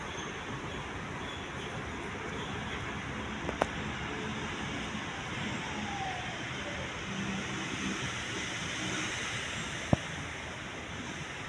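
Steady hum of city traffic, with two sharp clicks: one about three and a half seconds in and a louder one near the end.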